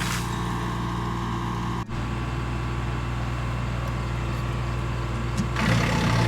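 Small gasoline engine running steadily at constant speed, broken by a brief cut about two seconds in and growing louder and noisier near the end.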